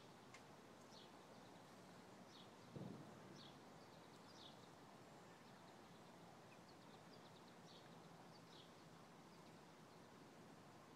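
Near silence with faint, short, high bird chirps every second or so, and one soft low thump about three seconds in.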